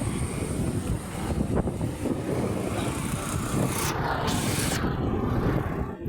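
Steady low rumble of a running motor vehicle, with a brief hiss about four seconds in.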